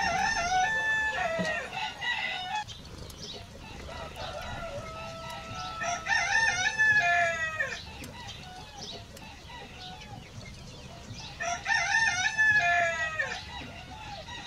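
Roosters crowing: three long crows, with quieter gaps between them.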